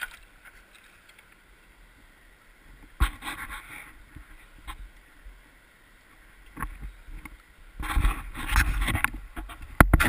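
Kayak paddle splashing in the water over a faint steady wash of river current, with a sharp knock about three seconds in and louder splashing and knocks near the end.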